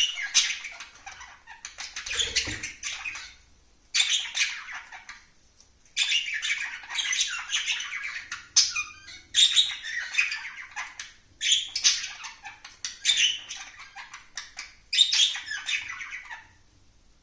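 Pet bird squawking and chattering in about six scratchy bouts of two to three seconds each, with short pauses between them.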